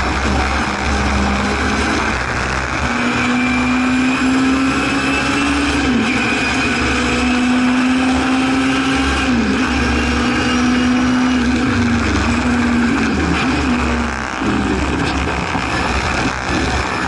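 In-car sound of a Hillman Imp-based Singer Chamois race car's engine running hard at high revs, its note held fairly steady with a few brief dips in pitch and a short lift-off about fourteen seconds in, over wind and road noise.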